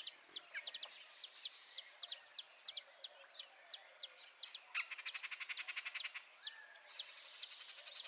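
Small birds chirping: a quick series of short, high chirps throughout, with a thin high whistle in the first second and a buzzy trill about five seconds in.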